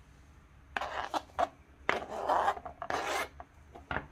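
Knife blade scraping diced fresh cucumber off a plastic cutting board into a bowl in several strokes, with a couple of light taps near the end.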